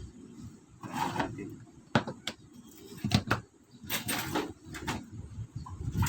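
Electric kettle being handled: a string of sharp clicks and knocks, several within a couple of seconds.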